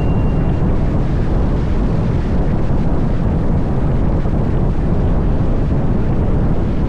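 Steady wind buffeting the microphone: a dense, even rumbling hiss, heaviest in the low range.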